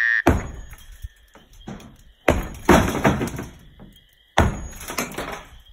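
Sledgehammer striking a brick chimney: three heavy blows about two seconds apart, each a sharp crack of brick and mortar followed by a rattling, breaking tail.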